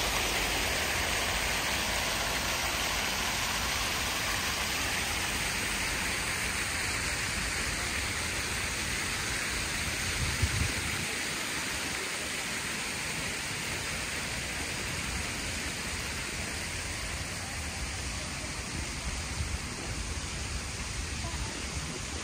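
Many jets of a large plaza fountain splashing into their pool, a steady rush of falling water that gradually fades. A brief low bump about ten seconds in.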